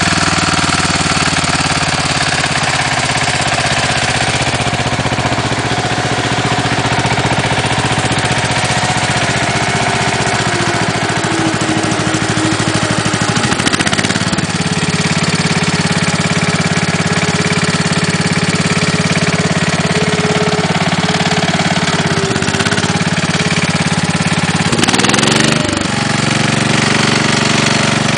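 Case 444 garden tractor engine running steadily with a knock that the owner takes for piston slap. Its speed shifts briefly about halfway through and again near the end.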